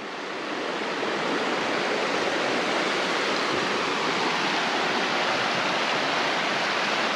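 Small mountain creek rushing over rocks: a steady rush of flowing water that grows a little louder over the first second or so.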